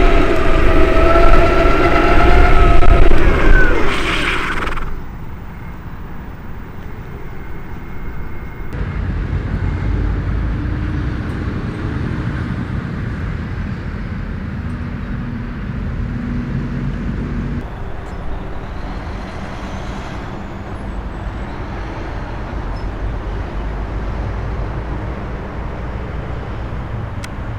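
Flipsky Lightning electric skateboard being ridden, with the wheels rolling on pavement in a steady rumble. A wavering motor whine is loud for the first four or five seconds and then drops away.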